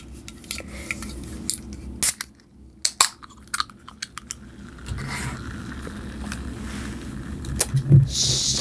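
Close-miked clicks and crackles of saltine crackers and a soda can being handled, followed near the end by a short fizzy hiss from a can of Canada Dry ginger ale.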